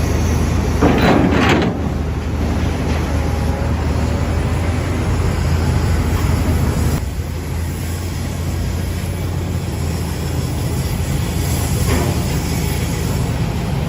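Heavy industrial machinery running with a steady low hum, with a burst of metal clattering about a second in and a lighter one near the end.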